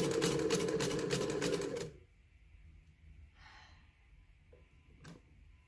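Singer sewing machine stitching at speed, a rapid even clatter of the needle over the steady hum of its motor, stopping abruptly about two seconds in. After it stops there is a faint rustle and a single sharp click.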